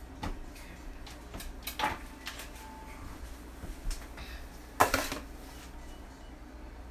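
Kitchen clatter: a few separate knocks and clinks of utensils and dishes being handled, the loudest about five seconds in.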